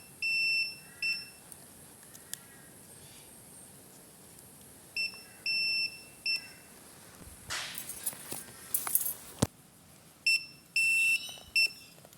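Battery spot welder beeping in three groups of two or three high beeps, about five seconds apart, as nickel strips are welded onto lithium cells. A couple of sharp clicks fall between the groups.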